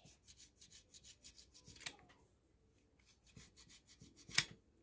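A knife skiving the edge of a leather patch: a run of quick, faint scraping strokes, about seven a second, with a short pause a little past the middle. A sharp tick comes about two seconds in and a louder one near the end.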